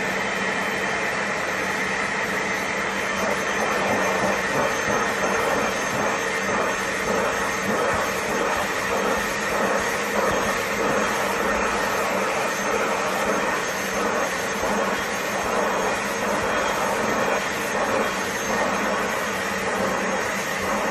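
BISSELL Little Green portable carpet and upholstery cleaner running, its motor giving a steady whine over a rush of air. From about four seconds in the rush turns uneven and fluttering as the nozzle draws in air.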